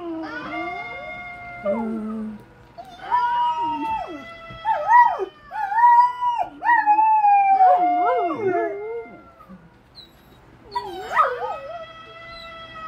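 Golden retriever howling: a run of long howls that hold and then slide down in pitch, some breaking into wavering, yodel-like notes. It goes briefly quiet about ten seconds in, then the howling starts again near the end.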